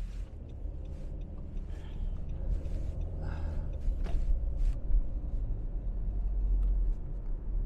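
Car cabin rumble while driving: steady low road and engine noise, growing a little louder partway through.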